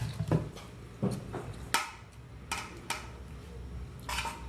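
Cutlery clinking and scraping against a plate while eating scrambled eggs: about six short, sharp clicks at uneven intervals.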